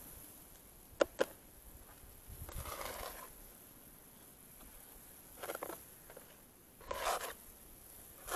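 Plastic skimmer knocking twice against an iron kadai about a second in, then several short scrapes and swishes as it skims the froth off boiling sugar syrup.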